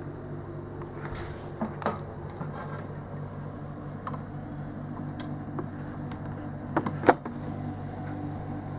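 Steady low hum of a parked delivery lorry's idling engine and refrigeration unit. A few sharp clicks or knocks sound over it, the loudest about seven seconds in.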